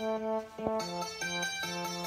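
iPhone ringtones playing: one melody of pitched notes ends and, about a second in, another ringtone begins with evenly repeated notes, about three a second.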